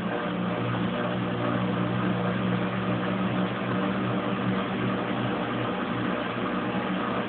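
Kenmore Oasis top-load washing machine spinning up after draining: a steady motor hum with a whirring drum, running without the stop that had been throwing the OL code.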